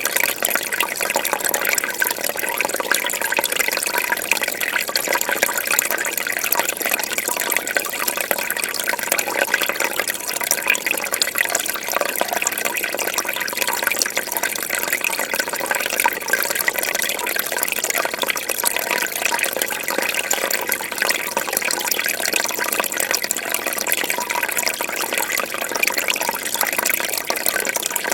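Fish tank water bubbling steadily, a continuous dense fizz of small bubbles and trickling water.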